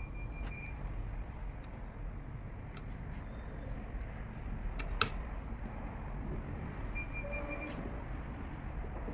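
Scattered sharp clicks of hand work over a steady low hum, the loudest click about five seconds in, with two brief high chirps near the start and near the end.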